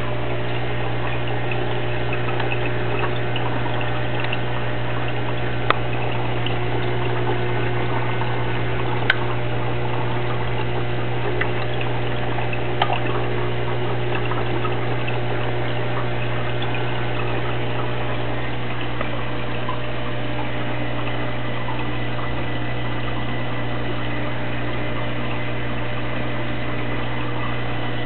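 Aquarium water pump humming steadily over running, bubbling water, with three brief sharp clicks in the first half.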